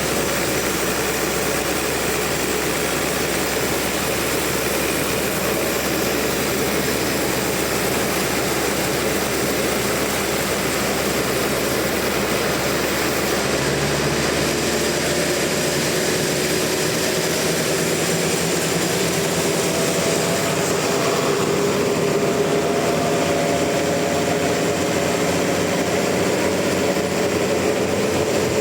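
Sawmill saw running steadily as it cuts a large trembesi (rain tree) log. About halfway through, the deepest rumble drops away and a steady higher whine comes in over the noise.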